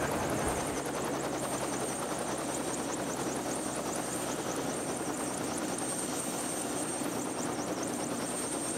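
Light helicopter running on the ground with its main rotor turning: a steady rotor and engine noise with a thin high whine and a fast, even chop.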